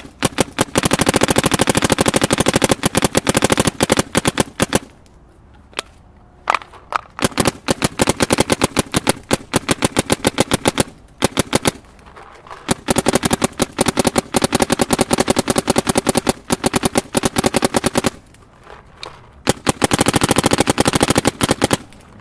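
Planet Eclipse Etha 2 paintball marker firing long, rapid strings of shots on compressed air, with three short breaks in the firing.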